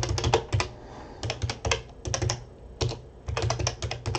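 Typing on a computer keyboard: quick runs of several keystrokes with short pauses between them.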